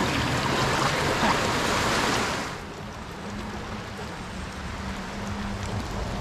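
Flood-swollen creek water rushing, a loud steady whitewater rush that drops to a quieter, duller flow about two and a half seconds in.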